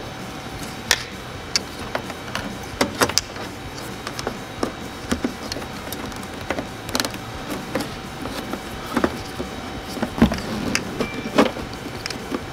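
Plastic handling noise: irregular clicks and knocks as LED bulb wires and a rubber dust cover are worked into the back of a plastic truck headlight housing.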